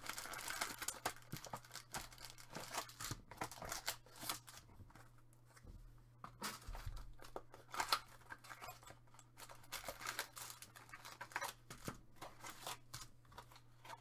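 Hands tearing open a thin cardboard Topps Finest mini-box of trading cards and handling the card stock: irregular tearing, rustling and light clicks.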